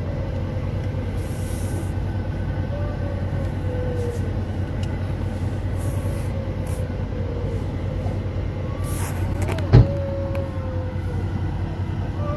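Steady low rumble of a vehicle, heard from inside the car, with one sharp thump about ten seconds in.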